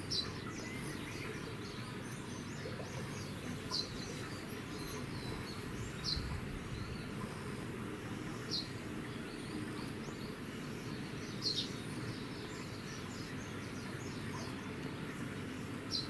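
A small bird chirping: short, sharp, high chirps repeating every two to three seconds, with fainter ones between, over a steady low background rumble.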